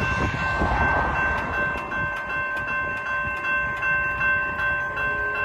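Railroad crossing warning bell ringing steadily at about two to three strokes a second, signalling an approaching train while the crossing gates come down. A low rumble runs underneath.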